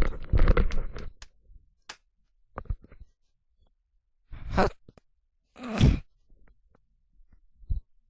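Clicking and rattling in the first second, a few single clicks, then two breathy sighs about a second apart midway through.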